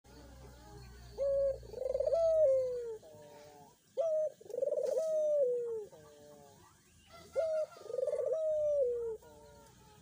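Barbary dove (ringneck or puter dove) cooing three times, about three seconds apart. Each coo is a short note followed by a longer rolling note that drops in pitch at the end.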